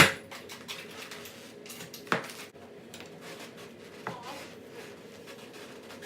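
Three sharp clinks of hard objects knocked together, about two seconds apart, the first the loudest, each with a short ring, over a faint steady hum.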